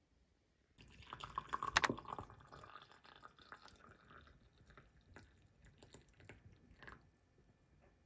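Liquid poured from a clear pitcher into a white glass mug: a splashing stream starts about a second in, is loudest shortly after, then thins to a trickle and scattered drips.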